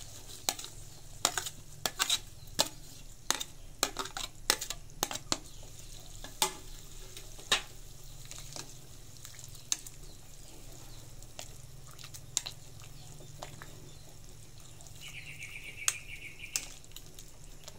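Metal ladle clinking and scraping against a stainless steel soup pot and a plate as greens are pushed into the pot and the soup is stirred. The clinks come thick and fast in the first half and sparse later, over a steady low hum, with a short buzzy high note about fifteen seconds in.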